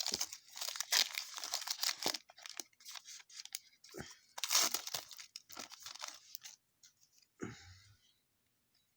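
A card pack's wrapper being torn open and crinkled, with the cards rustling as they are pulled out, for about six seconds; a soft thump follows about seven and a half seconds in.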